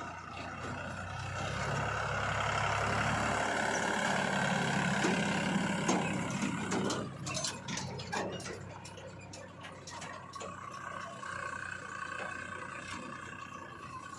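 Heavy diesel engine of earth-moving machinery working, rising in loudness for a few seconds and then easing back. A cluster of sharp knocks and rattles comes in the middle.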